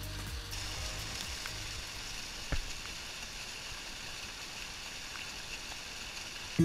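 Hot-spring water splashing and pouring over rocks right at the camera, a steady hiss that grows louder about half a second in. One sharp knock about two and a half seconds in.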